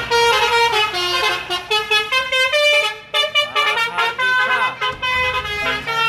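Bus telolet horn, a multi-tone musical air horn, playing a melody of quickly changing notes. There is a short break about three seconds in.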